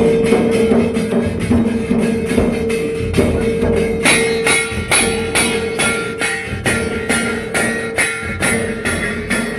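A dhol ensemble playing live: the drums are struck in a steady, even beat of about two and a half strokes a second, with jingling metal percussion on every stroke, over a steady held tone. A brighter, higher melody line comes in about four seconds in.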